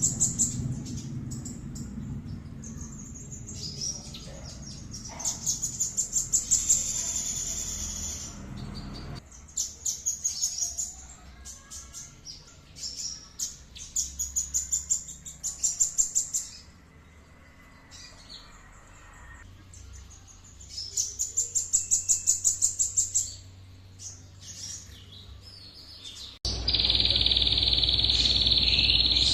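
Songbird singing: bursts of rapid, evenly repeated high notes and trills, each lasting a second or two, with the recording changing abruptly partway through. Near the end a loud, steady high buzz cuts in suddenly.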